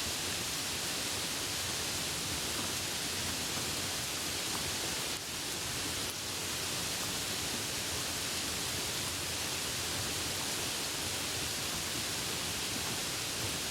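Steady rain falling, an even hiss with a brief slight dip about five seconds in.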